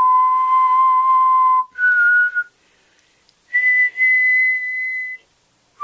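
Someone whistling three long held notes, each higher than the one before, with short pauses between them.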